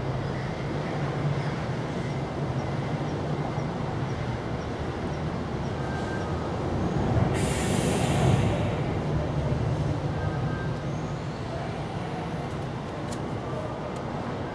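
Steady low mechanical hum and rumble, with a loud hiss lasting about a second a little past halfway.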